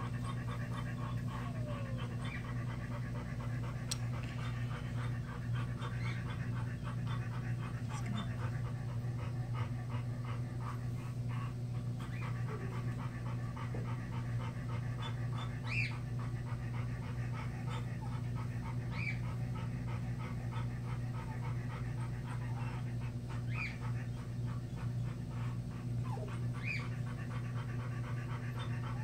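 A dog panting steadily and rapidly, with a short, high, rising whimper every few seconds, over a steady low hum.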